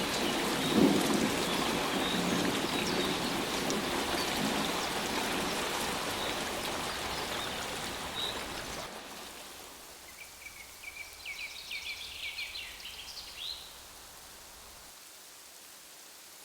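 Rain falling steadily, with a low rumble of thunder about a second in; the rain fades away after about nine seconds, and a short run of quick high chirps follows.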